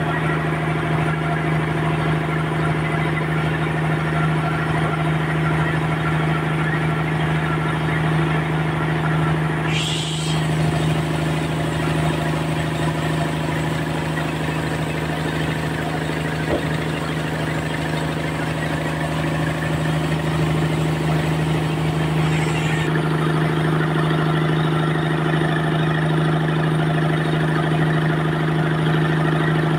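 Sawmill machinery running with a steady, even drone at a constant pitch, with a brief higher sound about ten seconds in and a slight change in tone about two-thirds of the way through.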